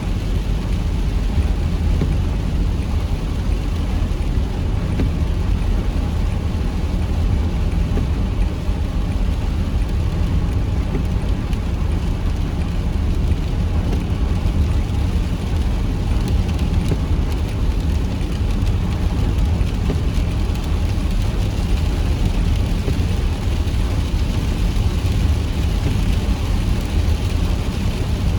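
Heavy rain falling steadily, under a strong, constant low rumble.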